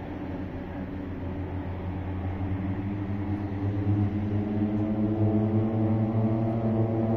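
Aerobatic display aircraft flying in formation: a steady engine drone that grows louder through the last few seconds as the aircraft close in.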